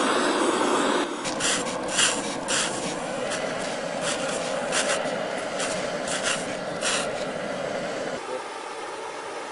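About ten short hisses of a hand trigger spray bottle squirting water onto a red-hot Zircaloy tube, over the steady hiss of an acetylene torch. The steady hiss drops away near the end.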